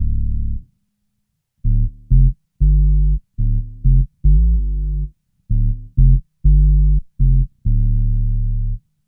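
Bass guitar played through a Boss OC-2 Octave pedal with only the two-octaves-down voice on (Oct 2 full, Oct 1 and direct signal off). It plays a low bass line of short, separate notes that cut off abruptly, with a short slide in pitch about four seconds in.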